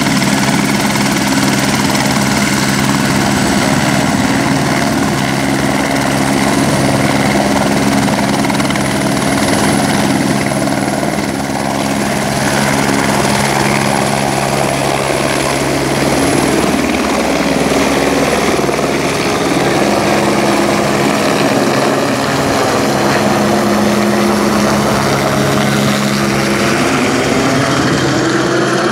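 Eurocopter AS350 B2 Ecureuil helicopter lifting off vertically and climbing away overhead: steady main-rotor beat over the high whine of its single Turbomeca Arriel turboshaft. Loud throughout, with the rotor tones bending in pitch near the end as it passes overhead.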